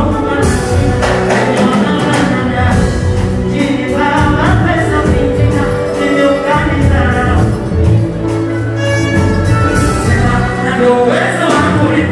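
Male vocalist singing a Bongo Flava song live into a handheld microphone over a loud backing track.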